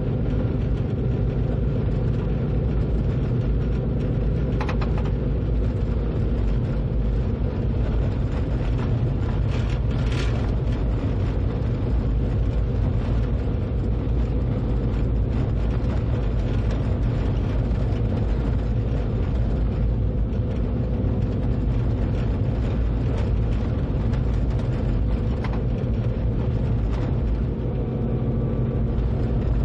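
Train running steadily along the track, heard from the driver's cab: a continuous low rumble with a steady hum. A few brief clicks come through, around a third of the way in and again near the end.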